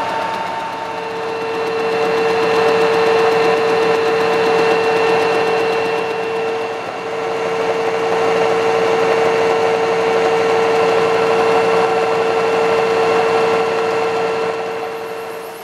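Horizontal milling machine cutting a V-slot into a soft vise jaw with an angle cutter on its arbor. A steady whine runs over the noise of the cut, with a brief dip in level about seven seconds in.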